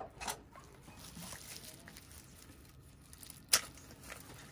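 Soft handling noises, with one sharp knock about three and a half seconds in.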